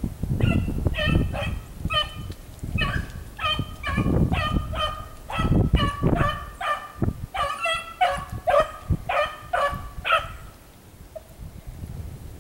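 Beagle baying on a rabbit's track as it runs the rabbit alone: a steady string of short barks, about two a second, that stops about two seconds before the end.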